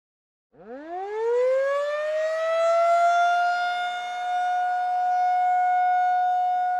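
Civil defense siren starting about half a second in, its pitch rising quickly from low and then holding steady as a loud wail.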